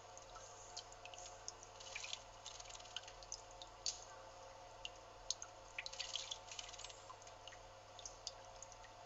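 Small splashes and drips of water in a stone birdbath as a male narcissus flycatcher bathes, with short bursts of splashing about two seconds in and again around six seconds in.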